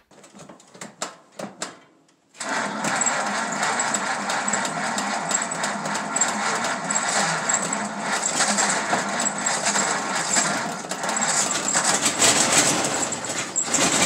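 A few faint knocks, then about two and a half seconds in a Ford flathead V8 engine cuts in, running at a steady idle with a fast, even clatter of ticks.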